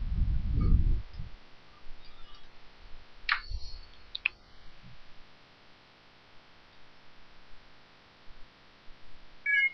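Handling noise as an iPhone's USB cable is plugged in: a low rumble through the first second, then two sharp clicks about a second apart, and a short high tone near the end.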